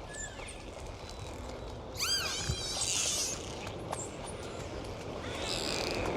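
Dolphins whistling and chirping over a steady background of sea noise: a short whistle at the start, then about two seconds in a quick run of rising-and-falling whistles followed by a chirping burst, and a buzzy call near the end.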